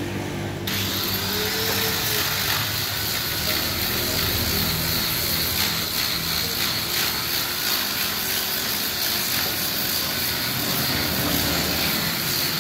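A machine starts up about a second in and runs steadily with a high whine and hiss, over a lower engine-like hum. A few light knocks of wood come as chair parts are fitted together.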